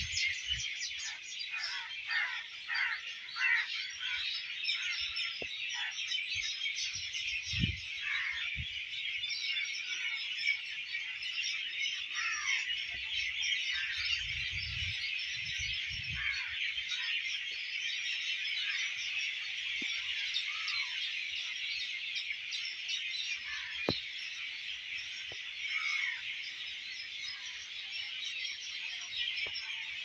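Dense evening chorus of many birds chirping and twittering together, with repeated short downward-sliding calls standing out. A few low thumps come about a quarter and halfway through.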